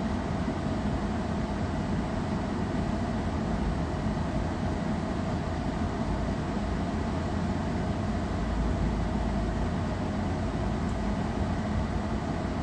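Steady low rumble and hiss of a car cabin with the engine running and the ventilation blowing, with a faint steady whine.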